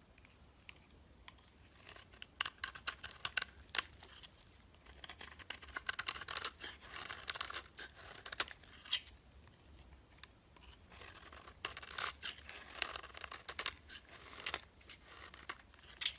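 Close-up crisp crackling and crunching in several bursts of sharp clicks a few seconds apart, with quiet between them, from crunchy soap or slime being cut or worked by hand.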